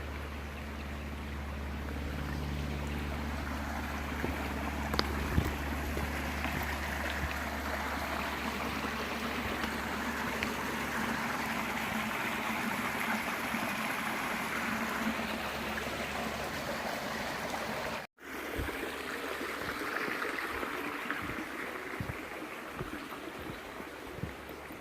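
Creek water running and gurgling over rocks, a steady rushing sound, with a low rumble under it in the first half. It cuts out for an instant about three quarters of the way through and eases off near the end.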